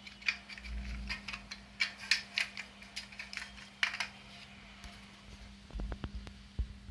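A run of quick, irregular clicks and rattles of small hard objects being handled, then a few low bumps near the end, over a steady low electrical hum.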